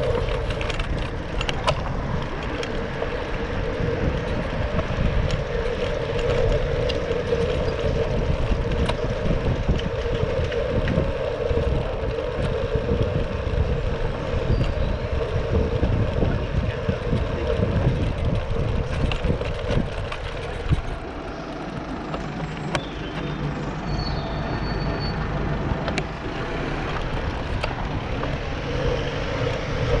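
Ride noise from a Brompton folding bike in city traffic: a steady rumble of tyres on tarmac and wind on the microphone, with a constant hum. The low rumble eases for a few seconds about two-thirds of the way through.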